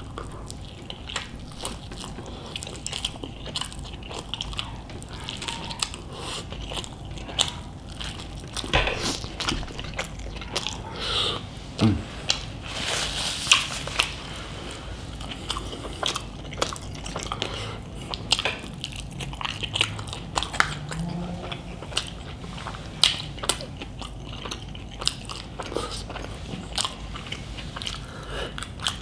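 Close-miked chewing and biting: many wet mouth clicks and smacks as a person eats a large chicken burrito.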